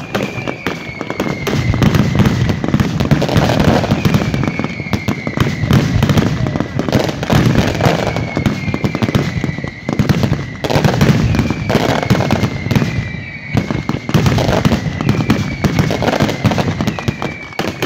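Fireworks going off nonstop: a dense crackle of firecrackers with heavy booming bursts swelling about every two seconds. A short falling whistle recurs about every two seconds through it.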